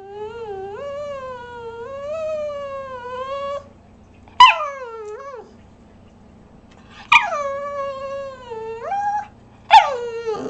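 A small Boston terrier–pug mix (bugg) dog vocalising in four drawn-out calls. Each call opens with a sharp high yip, then slides down into a long, wavering, sing-song tone, the dog's 'talking' reply to her owner.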